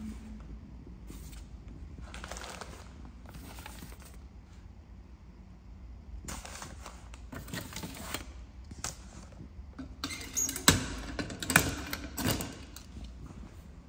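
Paper mail rustling as it is pulled out of a metal cluster mailbox, then a run of sharp metallic clicks and clatter near the end as the mailbox door is shut and locked with a key.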